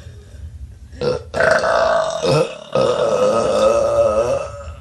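A woman belching on purpose: a short burp about a second in, then a long, drawn-out, pitched belch of about three seconds that wavers and breaks briefly partway through.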